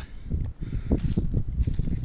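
Low, uneven rumbling noise with irregular rustling and a couple of light clicks about a second in.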